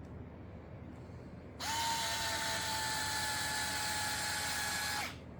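Electric screwdriver running steadily for about three and a half seconds, driving a screw into a kit part. It is a steady whine that starts about a second and a half in and cuts off shortly before the end.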